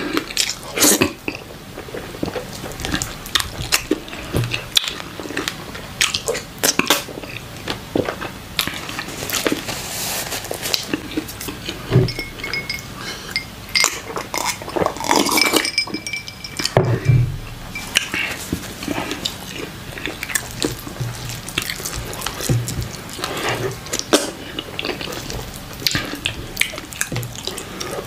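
Close-miked eating by hand: wet squelching and smacking as fufu is dipped in okra soup and chewed, in a steady run of short clicks. Partway through there is a drink from a glass of water.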